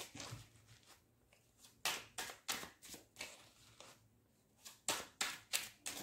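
Tarot deck being shuffled by hand: short, soft card slaps and flicks in two runs of about five, the first about two seconds in and the second around five seconds in.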